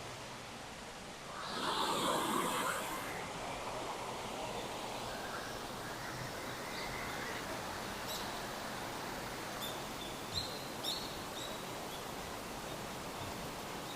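Outdoor countryside ambience: a steady hiss with a louder rustling rush about two seconds in, and a few short high ticks around ten seconds in.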